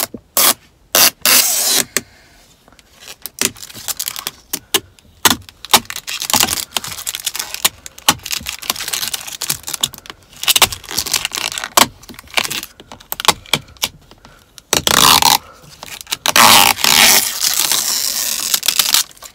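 Protective tape being peeled off a new car's trim: a run of short, crackling rips and clicks, then two longer, louder tearing peels near the end.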